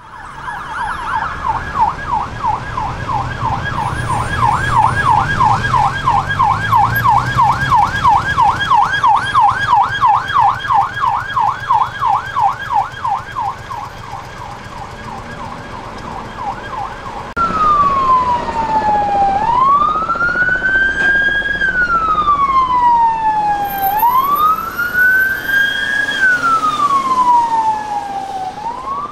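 UK emergency vehicle sirens. A fast yelp repeats about three times a second, then cuts suddenly about two-thirds of the way through to a slow wail that falls and rises every four to five seconds.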